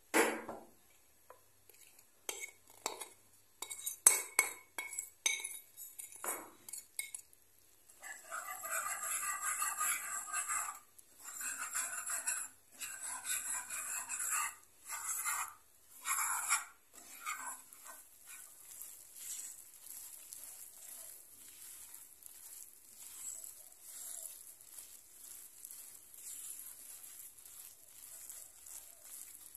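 A wire whisk scraping in a frying pan as flour is beaten into melted butter, in strokes a second or two long with short breaks, after a few scattered taps early on. In the second half this gives way to a steady faint sizzle with light scraping as the butter-and-flour roux cooks and is stirred with a silicone spatula.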